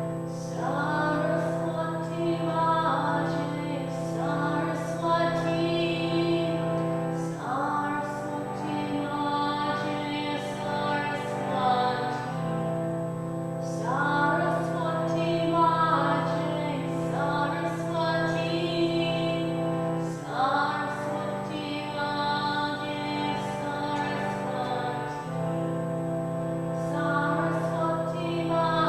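A woman's voice singing a slow, wavering chant over a sustained drone. The drone's chord changes every five to eight seconds.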